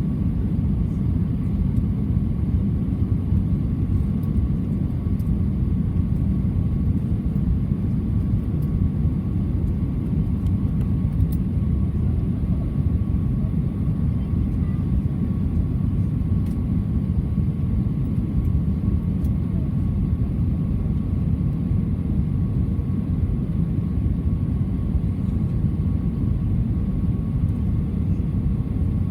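Steady cabin noise inside an Airbus A320 in flight: the low, even rush of airflow and jet engines, with a faint steady hum on top.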